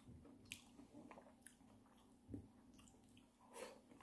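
Faint, wet chewing of soft fruit chunks, with a few short clicks and mouth noises spread through.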